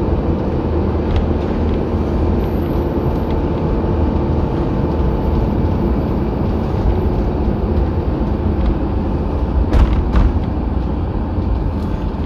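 Motorhome driving along a country road, its engine and tyres giving a steady rumble. A couple of short knocks come close together a little under ten seconds in.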